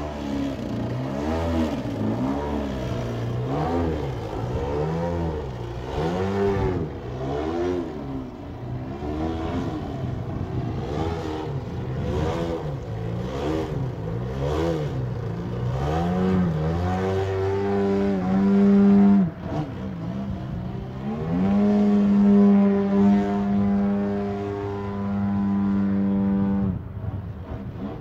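Freshly rebuilt Desert Aircraft DA-120 twin-cylinder two-stroke gas engine with canister exhaust, driving a Falcon propeller on a large aerobatic model plane. For most of the stretch the engine note rises and falls about once a second as the throttle is worked. Later it holds two long steady high-revving runs with a short dip between them, and it drops off near the end.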